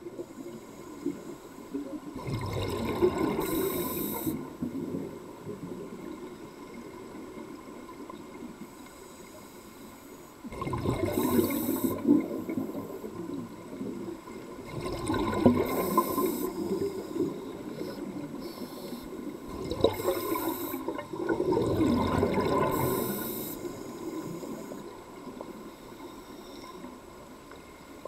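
A scuba diver breathing through a regulator underwater: about five breaths, each a short hiss with a burst of rumbling, gurgling exhaust bubbles, several seconds apart.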